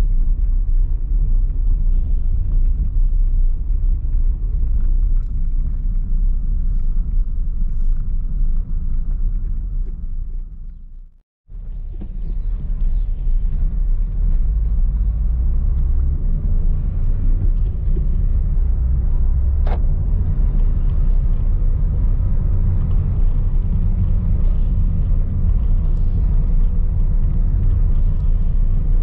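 Steady low rumble of a car driving, heard from inside the cabin: engine, tyre and road noise. About eleven seconds in the sound fades out to a moment of silence and comes back, and a single sharp tick is heard some seconds later.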